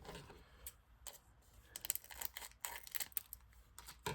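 Trading cards and their packaging being handled: a run of irregular light clicks, taps and rustles.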